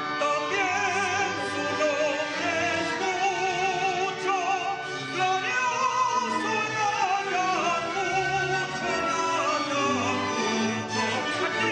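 Operatic singing with a wide vibrato over orchestral accompaniment, classical concert music.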